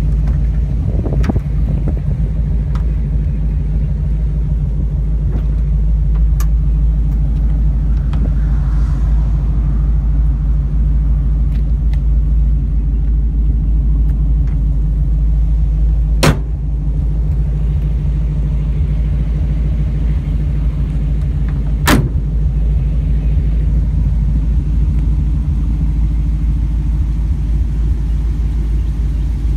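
GM 350 V8 idling steadily through dual exhaust, a low, even rumble. Two sharp knocks stand out over it, about sixteen seconds in and again some six seconds later.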